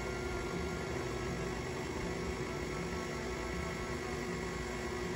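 KitchenAid stand mixer running steadily, its beater turning in the stainless steel bowl.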